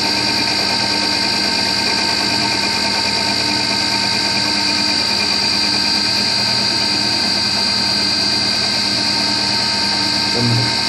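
Emco Compact 5 CNC lathe running, its motors and drive making a steady whine of several constant tones over an even mechanical noise.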